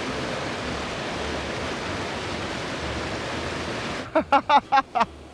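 A steady, even rushing noise that cuts off abruptly about four seconds in, followed by a man's short voice sounds.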